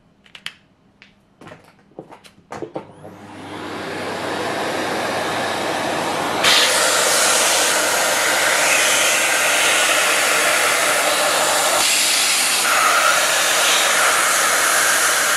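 Vacuum cleaner with a hose and brush nozzle, incredibly loud: after a few handling clicks it starts up, its rushing noise rising over about a second to a steady level, then jumps louder about six and a half seconds in and runs on steadily.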